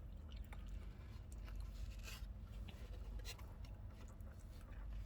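Faint chewing and small mouth sounds with a few soft clicks, over a steady low hum.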